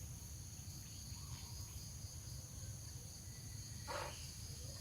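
Faint, steady chorus of field insects: several even high-pitched tones held together over a low rumble. A short, brief sound about four seconds in.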